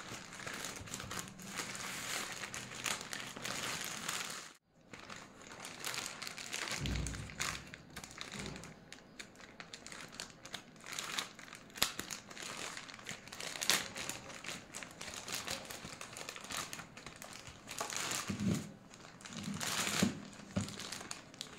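Plastic courier mailer crinkling and rustling as it is handled and pulled open by hand, in many sharp crackles. There is a brief break about four and a half seconds in, and a soft low thump about seven seconds in.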